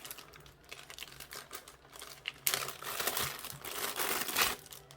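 Plastic packaging bag crinkling and rustling as it is handled and opened to take out a small power adapter, in irregular bursts that grow louder about halfway through.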